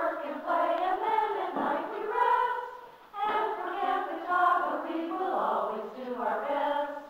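A group of young voices singing together, with two short breaths between phrases, the song ending just before the close.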